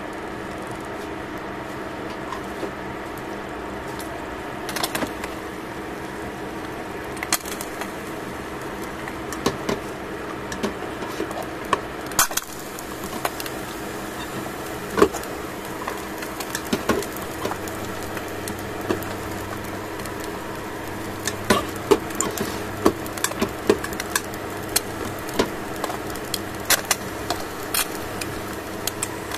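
Two eggs frying in a stainless steel pan: scattered pops and crackles of spattering fat, more frequent in the second half, over a steady mechanical hum.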